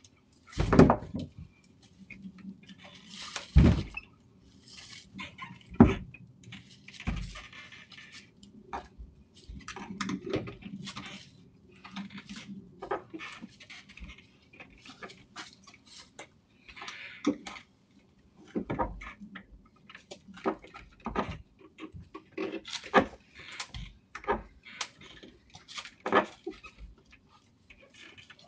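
Irregular sharp knocks, bangs and rattles from a front door being forced open by hand. The loudest come about a second in, near four seconds and near six seconds, with lighter knocks scattered through the rest.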